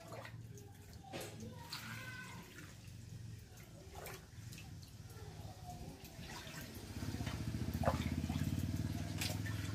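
Water sloshing and dripping in a steel bucket as a hand stirs it and scoops with a steel mug, with scattered clicks of metal on metal. A low hum comes in about seven seconds in and is the loudest sound.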